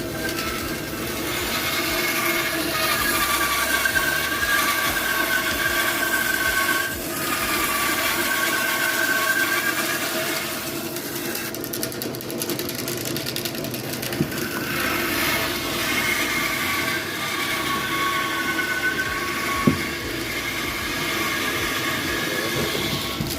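A vehicle on the move: steady engine and road noise with a high whine that holds for several seconds at a time, twice.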